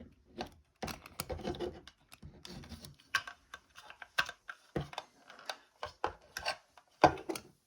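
Irregular clicks, taps and scraping from handling coaxial cable and a wall plate as the cable is pushed back into an electrical box and the plate is fitted over it.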